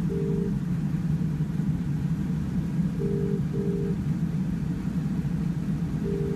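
British telephone ringing tone playing from a station help-point intercom's speaker: double beeps repeating about every three seconds while the call waits in the queue to be answered. A steady low hum runs underneath.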